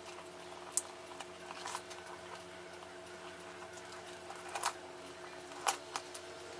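Faint handling of a leather satchel as it is opened: a few short soft clicks and rustles, over a steady low hum.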